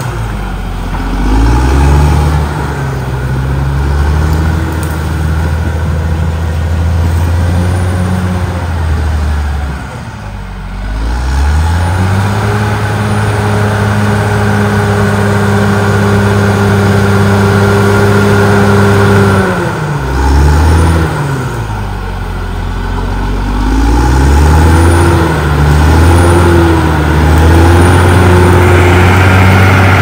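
Caterpillar D6R XL bulldozer's diesel engine running hard while pushing soil and brush. Its pitch dips twice, about a third and two thirds of the way through, and climbs back to a steady high speed.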